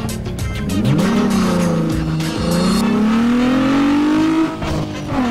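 Cartoon monster truck engine sound effect revving: its pitch rises sharply about a second in, dips, then climbs slowly before falling away, over background music.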